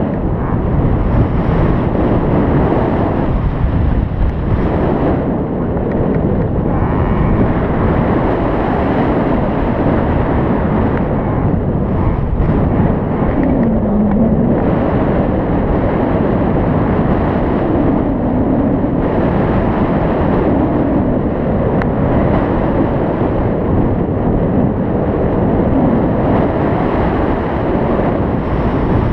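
Loud, steady rush of wind buffeting the microphone during a paraglider flight, the airflow noise fluctuating unevenly.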